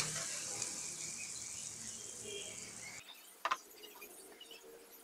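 Thickened tamarind sauce sizzling faintly in a wok and dying away just after the gas burner is switched off. It cuts off about three seconds in, and a single short knock follows half a second later.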